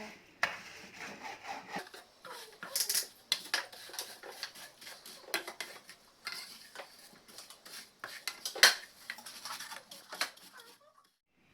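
A spoon scraping and clinking against a pan while semiya (vermicelli) is stirred as it fries in ghee toward golden brown. The clicks and scrapes are irregular, with one sharper clink about nine seconds in, and they stop shortly before the end.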